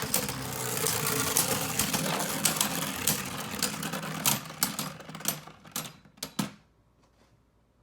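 Beyblade Burst spinning tops whirring and clattering against each other and the walls of a plastic Beystadium, a dense rattle of rapid clicks. The clatter thins to a few separate knocks as the tops slow and stop, and it dies away a little over six seconds in.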